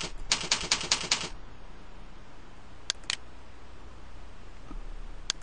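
Computer keyboard typing a short word, a quick run of about six keystrokes, then a pair of clicks about three seconds in.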